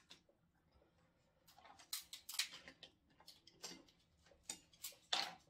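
Scattered small clicks and cracks of crab shells being broken and picked apart at the table.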